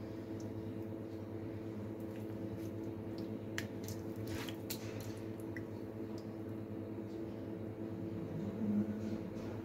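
Wet squelching of yogurt-marinated beef cubes being handled and pushed onto a metal skewer, with a few sharp clicks about four seconds in. A steady low hum runs underneath.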